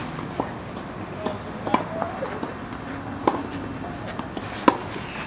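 Tennis ball struck by rackets in a rally: sharp pops about every second and a half, with fainter knocks of the ball between.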